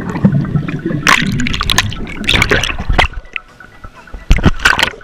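Pool water heard through an action camera's microphone underwater: a muffled, rumbling gurgle of bubbles with many small ticks. Near the end come a few sharp splashes of water slapping against the camera at the surface.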